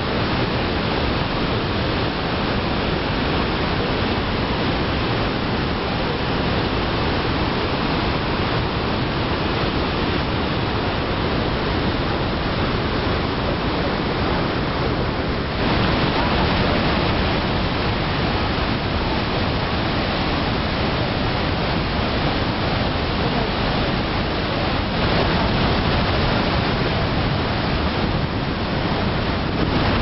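The Rhine Falls: heavy whitewater pouring over rock in a steady, dense rush. It gets a little louder and brighter about halfway through.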